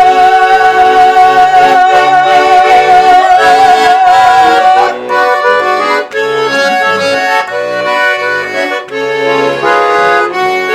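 Garmon (Russian button accordion) playing a folk-song interlude. For about the first five seconds one long note is held with a slight wobble over the chords, then the garmon runs on alone with shifting chords and melody.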